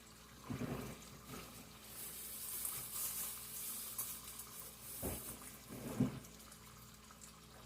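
Turkey bacon sizzling in a frying pan, a low steady hiss that swells for a couple of seconds, with a few soft knocks of kitchen handling.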